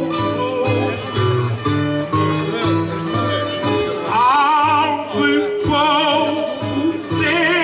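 Folk string accompaniment for a cantoria ao desafio: acoustic guitar and viola plucked and strummed in a steady rhythm. About halfway through, a man's voice comes in singing a held line with a strong vibrato.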